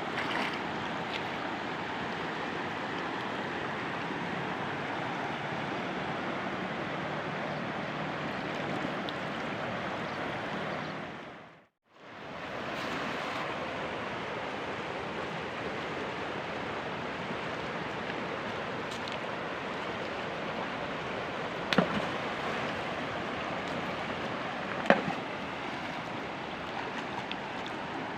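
Steady rush of flowing river water. It fades out and back in briefly near the middle, and two sharp knocks come in the second half.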